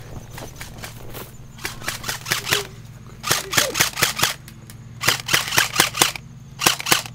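Airsoft guns firing in four quick bursts, several sharp shots a second in each.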